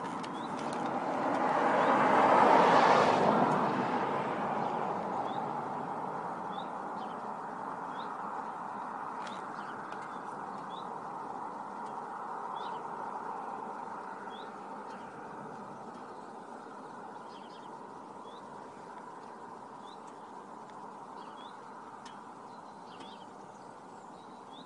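A car drives past, its noise swelling to a peak about three seconds in and then slowly fading away. Short high bird chirps repeat every second or two.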